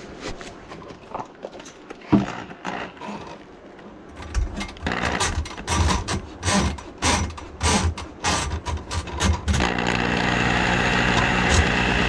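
Handheld drum drain auger run on a grease-clogged kitchen sink drain line: after a few light knocks of handling, its motor spins the cable drum in short bursts, then runs steadily from about ten seconds in.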